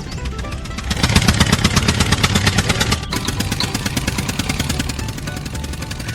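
Small engine running with a rapid, even chugging that grows louder about a second in and eases back after about three seconds.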